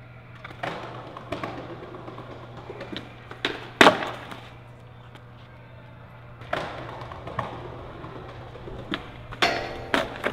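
Skateboard hitting and rolling on concrete: the board slaps and clatters against the ground in a string of sharp knocks, the loudest about four seconds in, with wheel roll-out after them as tricks are bailed and the board shoots away from the rider.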